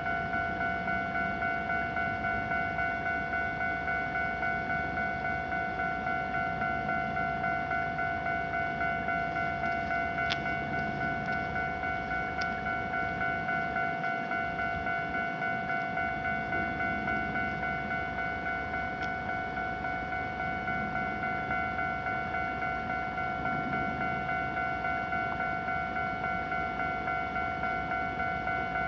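Japanese railway level-crossing warning alarm ringing: an electronic bell repeating the same high ding at a steady, even pace, signalling that a train is approaching and the crossing is closed.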